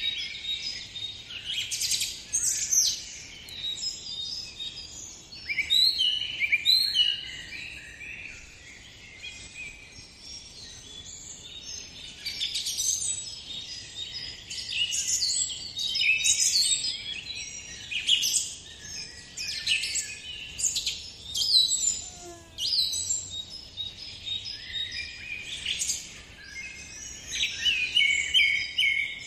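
Birdsong: a chorus of small birds chirping, with many quick, high calls overlapping without a break.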